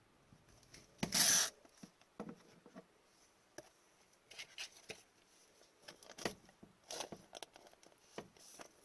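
Trading cards being handled and flipped through, sliding and tapping against one another. There is a louder swish about a second in, then scattered soft clicks and rubs.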